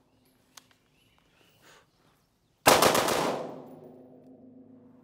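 A single rifle shot from an AR-15-style rifle with a ZRODelta Cowl Induction Brake muzzle brake, going off about halfway through and echoing as it fades over about a second. A faint click comes shortly before it.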